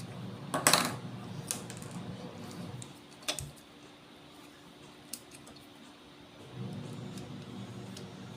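Sharp plastic clicks and taps from handling the opened Fluke 8024A multimeter's case and parts, the loudest a short clatter about half a second in, with single clicks after.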